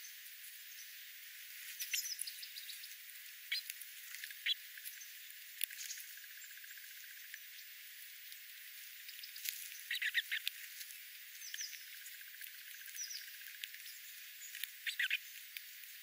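Small birds (golden-crowned sparrows, dark-eyed juncos, spotted towhee) feeding on seed scattered over gravel: irregular light pecking and scratching clicks mixed with short chip calls, busiest about two seconds in, around ten seconds in and near the end. Heard thin and close through a parabolic collector dish, with the low end filtered out.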